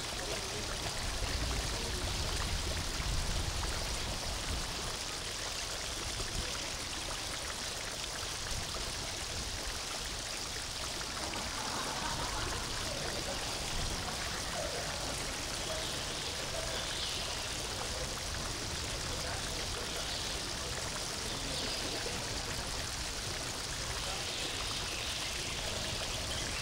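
Steady rushing noise of running water, with faint voices in the background.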